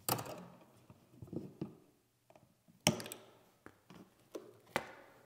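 Pliers and stiff copper electrical wires clicking and rattling as the wires are twisted together and handled: a few sharp clicks about two to three seconds apart, with faint rustling and ticks between.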